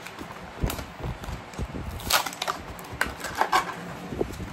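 Cardboard toy packaging being handled and pulled apart: irregular rustling, scraping and tapping, with a few louder crackles about two seconds and three and a half seconds in.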